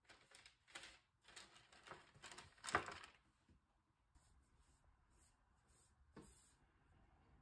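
Faint rustling and crinkling of parchment paper as a shaped baguette dough is laid on it and adjusted, with the loudest crackle near the three-second mark, then near quiet.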